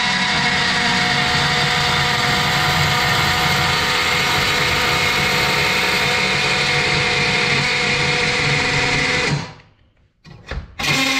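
Oscillating multi-tool running steadily as its blade cuts through a steel engine windage tray. The buzz stops abruptly for about a second and a half near the end, then starts again.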